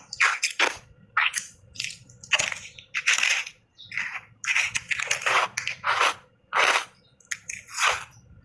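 Refrozen block ice being bitten and chewed: a quick run of sharp crunches, about two a second.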